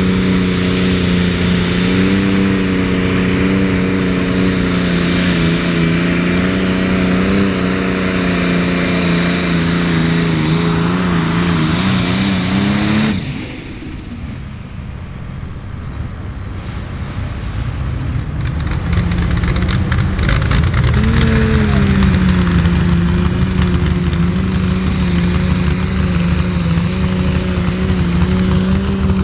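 Hot farm diesel pulling tractors running flat out under load as they drag the pulling sled, a steady high engine note. About 13 seconds in the sound cuts off suddenly and goes quieter. About 21 seconds in another tractor's engine rises in pitch and holds steady under load.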